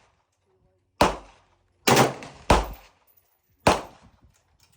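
Gunshots from a rifle fitted with a Rare Breed forced-reset trigger: five sharp reports at uneven spacing, two of them fired close together about two seconds in. Each shot tails off in a short echo.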